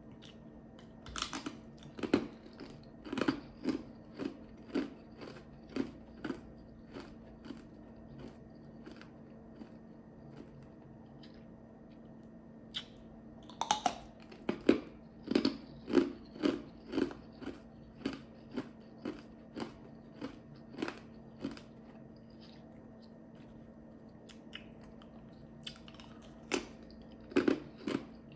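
Ice chips being bitten and chewed: runs of sharp, crisp crunches at about two a second, with a couple of pauses of a few seconds between mouthfuls.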